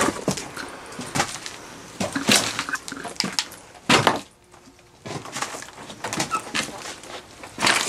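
Footsteps crunching and clattering over broken brick rubble and loose boards, with irregular knocks as debris shifts underfoot; the sharpest knocks come a little past two seconds, about four seconds and near the end.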